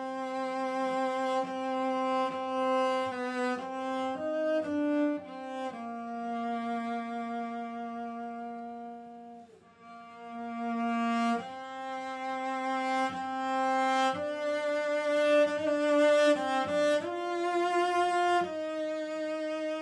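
Solo cello playing a slow melody in long held, bowed notes, with a brief break between phrases about halfway through.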